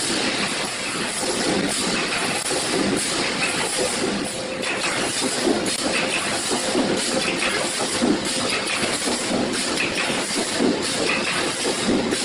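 Automatic wire mesh welding machine running, with sparks flying at its welding electrodes: a steady noisy clatter with repeated low knocks as it cycles.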